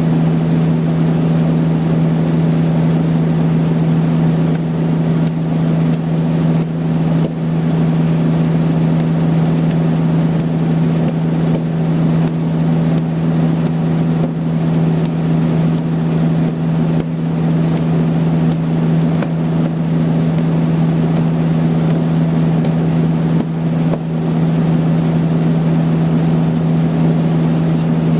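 Sawmill machinery running with a steady, loud low drone that holds an even pitch throughout, with a few faint clicks.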